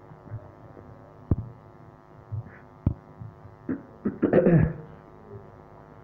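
Steady electrical hum in the recording, with two sharp clicks and, about four seconds in, a brief wordless vocal sound from a man.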